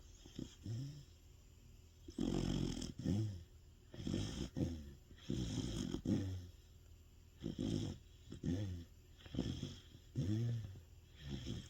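A Sapsali, a large Korean shaggy dog, snoring loudly in its sleep. It is a string of snores, one with each breath, coming about every second. The longest and loudest come between about two and six seconds in, and each snore has a wavering pitch.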